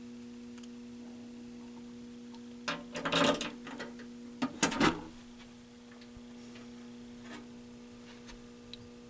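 A steady low electrical hum, with two short bursts of clattering and clicking handling noise about three and five seconds in.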